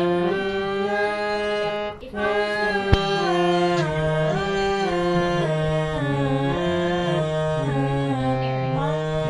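Harmonium playing a slow melody of held reedy notes that step from one pitch to the next over a lower sustained note. The sound breaks off briefly about two seconds in, and there is a single click about a second later.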